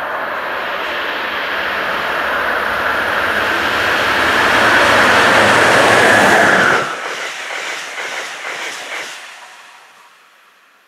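A high-speed Amtrak train led by a Siemens ACS-64 electric locomotive approaching, its wheel and air rush growing louder to a peak about six seconds in, then cut off abruptly. After that, an NJ Transit Multilevel push-pull train pulling away, its wheels clicking over the rail joints as the sound fades out.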